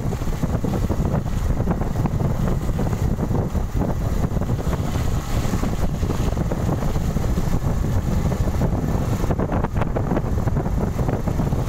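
Steady wind rush buffeting the microphone of a moving motorcycle, with the low running noise of the ride underneath.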